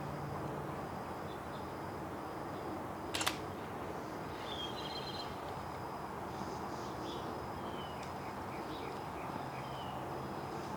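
Small birds chirping with short high calls over steady outdoor background noise, with one sharp click about three seconds in.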